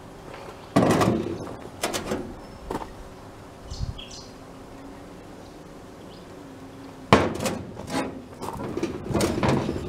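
A metal pot knocking on a steel tabletop and tipped into a stone mortar, with a sharp knock just under a second in and a few lighter knocks after it. About seven seconds in comes another loud knock, then a stone pestle clattering and grinding roasted sulfide in the stone mortar.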